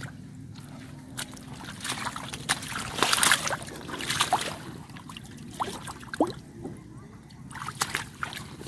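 Water sloshing and splashing in irregular bursts as someone works by hand through shallow water, loudest about three seconds in, over a steady low hum.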